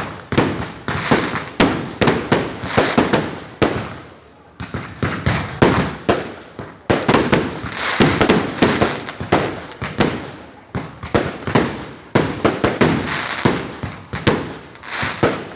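A dense barrage of fireworks going off: many sharp bangs and crackles overlapping, several a second, each trailing off in a short echo, with brief lulls about four and ten seconds in.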